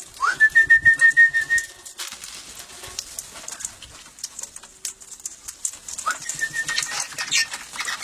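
A parrot's whistled call: a note that slides up, then holds as a fluttering whistle for about a second and a half. The same call comes again more faintly about six seconds in, among scattered chirps.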